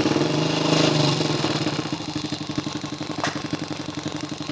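Honda Biz 100's small single-cylinder four-stroke engine running: revved briefly about half a second in, then settling back to a steady idle.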